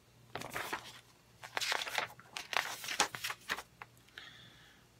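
Paper rustling and crinkling in quick irregular crackles as the pages of a paper booklet are handled and turned.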